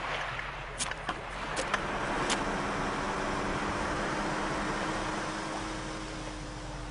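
A few sharp clicks and knocks of equipment being handled, then a small outboard motor running steadily with water rushing past an inflatable boat.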